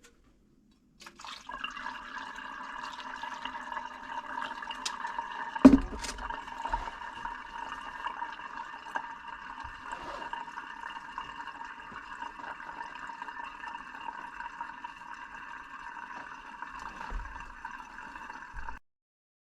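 Goat milk pouring steadily into a container. A single sharp knock comes about six seconds in, and the pouring stops abruptly near the end.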